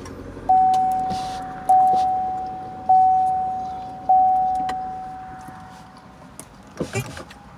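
Car dashboard warning chime: four identical single-pitch dings about 1.2 seconds apart, each fading away slowly, sounding as the ignition is switched on. A short burst of sound follows near the end.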